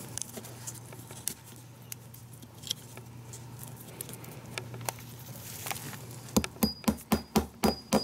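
Faint clicks of wire and a plastic-capped fence staple being handled. Near the end, a hammer starts tapping the staple into a wooden post with quick, even strikes, about four a second.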